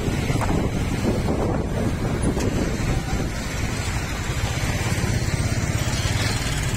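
Motorbike engine running steadily while riding through street traffic, with wind noise on the microphone.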